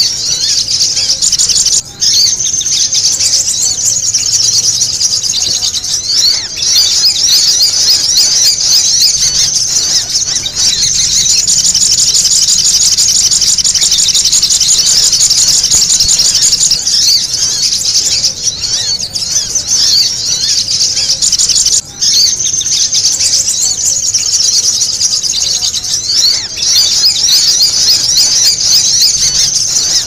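Continuous, busy high-pitched chattering and trilling of sogok ontong sunbirds mixed with kemade flowerpecker calls, a looped lure recording used to draw in wild birds. It drops out briefly about two seconds in and again around twenty-two seconds.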